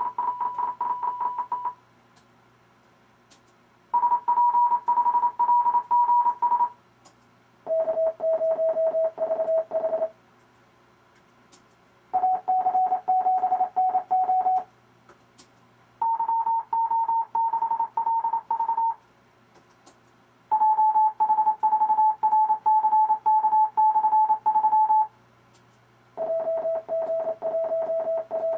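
Morse code tones from the RufzXP practice program, sending amateur radio callsigns as quick strings of dits and dahs. One callsign comes every few seconds with a short pause between, each at a different pitch, some higher and some lower, about seven in all.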